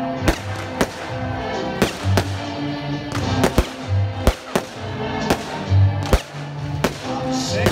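Fireworks display with about a dozen sharp bangs of shells bursting at uneven intervals, over loud accompanying music.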